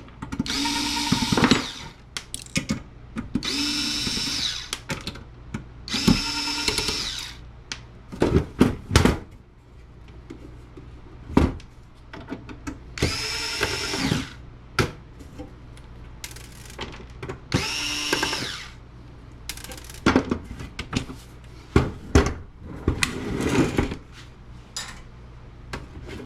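Cordless power screwdriver with a small Phillips bit spinning in short runs of about a second each, five or so times, backing screws out of a network switch's steel case, with knocks and clatter of screws and metal parts being handled in between.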